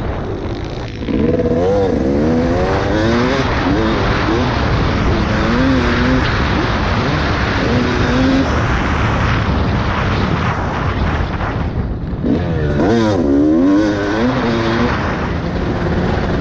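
Dirt bike engine revving up and down in several bursts through the throttle as the bike is ridden, under a constant rush of wind noise on the microphone.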